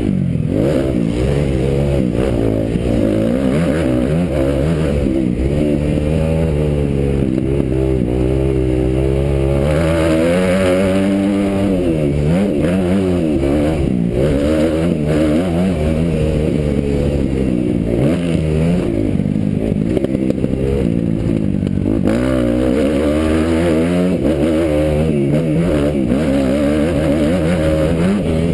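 Kawasaki motocross bike engine, recorded from the rider's helmet, revving hard under race throttle, its pitch rising and falling over and over as the throttle is opened and closed along the track.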